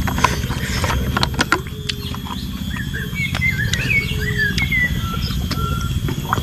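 Small birds chirping and twittering in short warbling phrases through the middle of the clip, over a steady low rumble. In the first second or two come a few sharp clicks as a canteen and its cap are handled.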